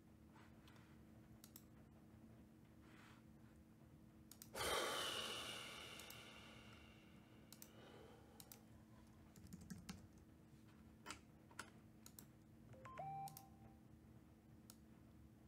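Faint, scattered computer keyboard and mouse clicks in a quiet room. About four and a half seconds in, a sudden loud noisy burst fades away over about two seconds. A brief tone with a quick pitch step comes near the end.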